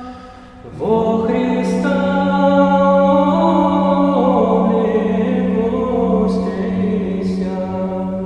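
Choir singing slow Orthodox liturgical chant: a held, many-voiced chord swells in about a second in, sustains, and fades away near the end, with a few soft sibilant consonants along the way.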